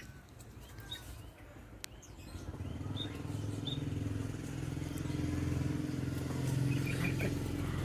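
A motor running steadily with a low hum that grows louder over the first few seconds, with a few short high bird chirps in the first half.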